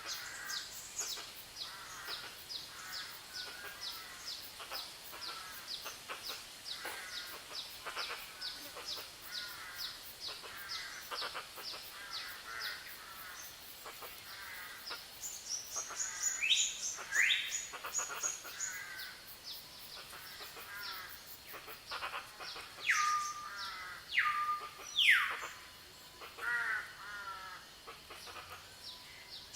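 Chorus of forest birds: a steady run of rapid high chirps under many overlapping calls, with several loud calls that sweep sharply down in pitch in the second half.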